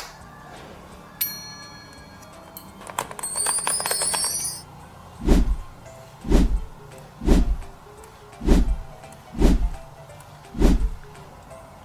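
Added cartoon sound effects: a short ding about a second in, then a high sparkling shimmer. After that come six soft, deep thuds, about one a second.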